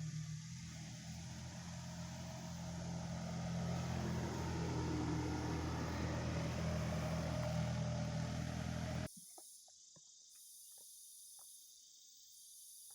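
A steady low droning hum that grows louder for several seconds, then cuts off suddenly about nine seconds in. After it, insects chirp faintly in a pulsing high-pitched buzz.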